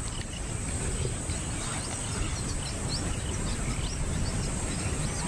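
Bush ambience: small birds giving short chirps throughout, over a steady background rumble and a faint high steady drone.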